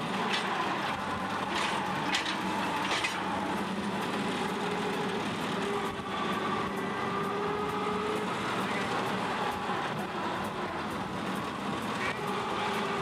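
The 42 hp C-135 engine of a forklift converted from an International 201 swather running steadily, its pitch rising and falling slightly, with a few sharp knocks in the first three seconds.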